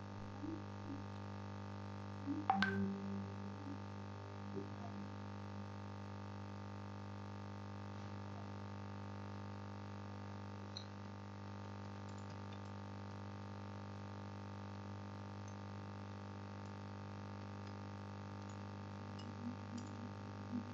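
Steady low electrical hum with a stack of even overtones, from the recording's audio chain, with a single sharp click and a brief low sound about two and a half seconds in.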